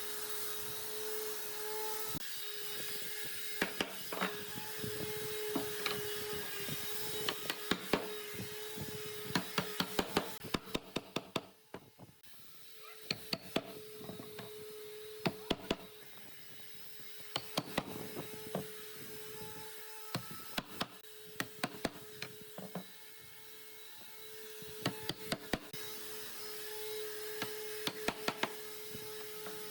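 Woodworking shop sounds: a steady machine hum with clusters of sharp wooden knocks and taps. The hum drops out briefly about halfway through.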